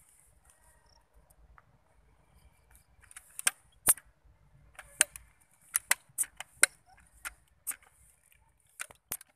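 A quick, irregular run of about a dozen sharp clicks, starting about three seconds in and stopping just before the end.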